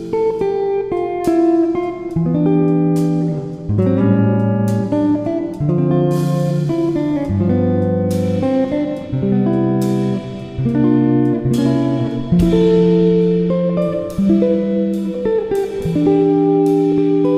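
Background music played on a plucked guitar, with a new note or chord struck about every second.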